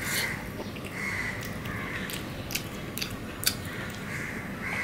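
Close-up chewing of a mouthful of rice and shukto eaten by hand, with a few sharp wet mouth clicks.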